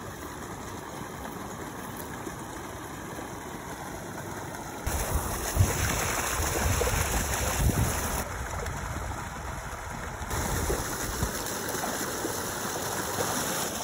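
Steady outdoor rushing noise, with a deeper rumble that comes in about five seconds in and shifts abruptly a few times.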